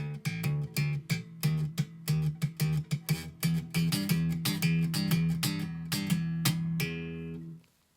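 Music: a picked guitar tune over a steady low note, ending on a held chord that stops about seven and a half seconds in.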